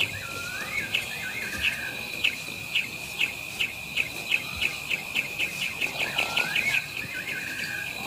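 Night-time bush sounds: a steady high insect trill, a run of short chirps that speed up, and a whistled bird phrase that rises and then wavers, heard twice, near the start and again about six seconds in.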